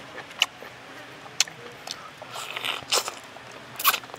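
Close mouth sounds of a person biting into and chewing stir-fried baby octopus: sharp wet smacking clicks about once a second, with a short stretch of chewing noise between them.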